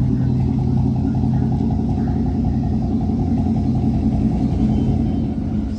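2012 GMC Sierra 1500 pickup's engine running through its loud aftermarket exhaust, a steady, low note as the truck rolls slowly away at low speed.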